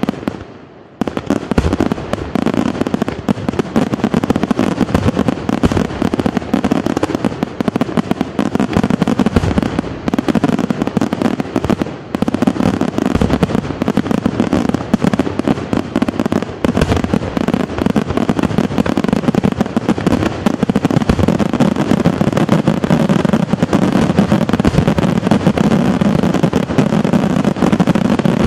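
Aerial fireworks by Luigi Di Matteo Fireworks going off in a dense, continuous barrage of rapid bangs and crackling, after a short gap about a second in.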